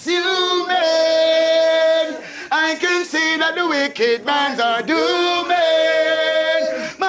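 A man singing unaccompanied in a reggae/dancehall chanting style, with short phrases broken by two long held notes.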